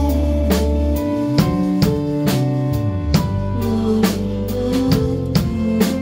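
Live band playing a song: a drum kit keeps a steady beat of about two hits a second under sustained electric guitar chords and low bass notes.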